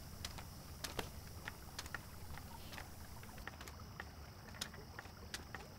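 Faint quiet background: a steady low hum with scattered light clicks and ticks at irregular intervals.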